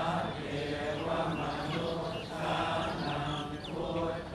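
Buddhist chanting, low and steady in pitch, with a few short bird chirps in the middle.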